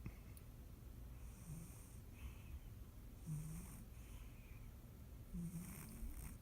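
Sleeping domestic cat snoring faintly, about one snore every two seconds, three in all.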